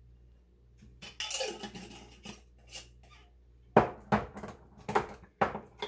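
Glass jar and kitchen utensils clinking as chopped onion is added to a glass mixing bowl: a brief scrape, then a quick run of sharp taps and knocks on glass.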